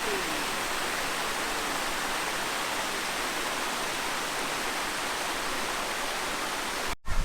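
Waterfall's falling water rushing steadily, an even hiss that does not change.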